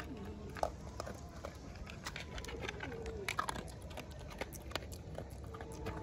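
Dog eating from a plastic bowl: scattered short clicks and crunches of chewing. A faint low cooing call sounds about halfway through.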